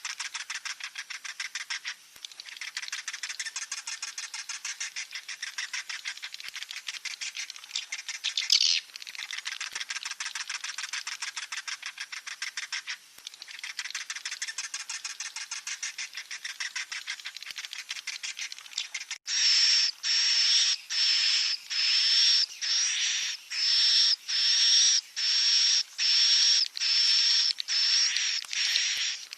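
Swiftlet chicks calling: a fast, buzzing chatter of clicks. About two thirds of the way through it changes abruptly to a run of a dozen or so separate chirps, each with a high whistled tone, at somewhat more than one a second.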